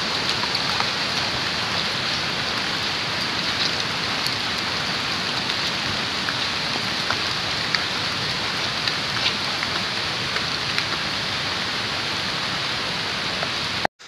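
Steady rain: a continuous hiss with scattered ticks of single drops. It cuts off suddenly near the end.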